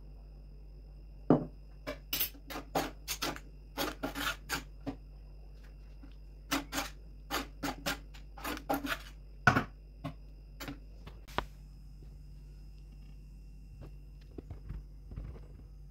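Couscous with vegetables being mixed and rubbed by hand in an earthenware dish: a run of short, irregular scraping and rubbing strokes that stops about eleven seconds in, leaving only a few faint ticks.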